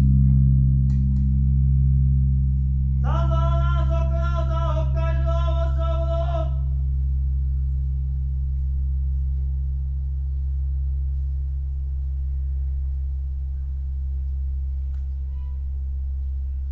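Large Buddhist temple bell (bonshō) humming as it dies away after a strike, its low tones throbbing slowly and fading. About three seconds in, a short wavering pitched sound with overtones rises over the hum for about three seconds.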